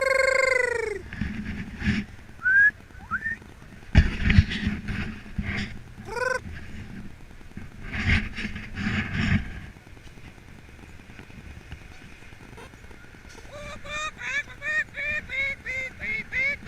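Canada geese honking: one long call at the start, a few scattered calls, then a quick run of short honks, about three a second, near the end. Several loud thumps with rustling come in between.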